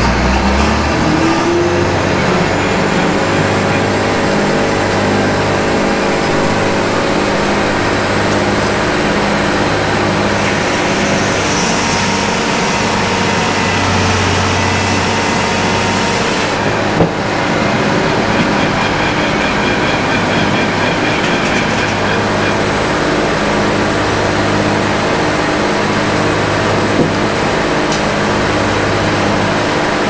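Tractor-driven circular sawmill running: the large circular blade spinning and cutting through a log as the carriage feeds it, over the steady drone of the tractor engine turning the flat-belt pulley. One sharp knock about halfway through.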